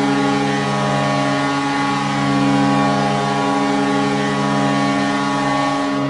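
Kahlenberg S203 CV three-chime air horn sounding one long, steady chord: the Vancouver Canucks' goal horn, signalling a home goal.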